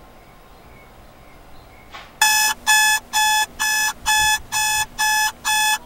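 Electronic alarm-clock beeping: a quick run of loud, evenly spaced beeps, about two a second, starting about two seconds in after a moment of quiet room tone. It signals that the hour of waiting is up.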